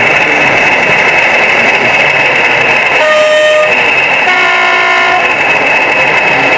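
Sound decoder in a model Class 40 diesel locomotive playing its engine running, then sounding a two-tone horn: a higher note about three seconds in, followed by a lower note lasting about a second.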